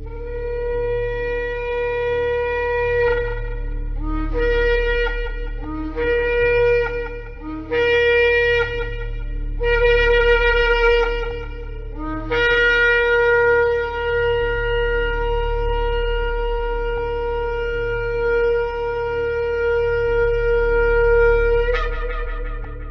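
Shofar (ram's horn) blown in a series of blasts. First one held blast of about three seconds, then four shorter blasts that each start on a lower note and break upward. Last, one very long held blast that ends with a sudden upward leap in pitch, over a steady low hum.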